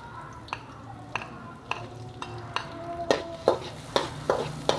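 Metal ladle clacking and scraping against a steel wok, stir-frying garlic and chilies in sizzling oil. The strokes come about every half second, then grow quicker and louder after about three seconds.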